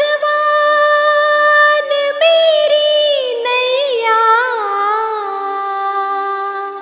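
Devotional song intro: a woman's voice holding long wordless notes, with ornamented bends about halfway through, over a steady drone. It fades down near the end.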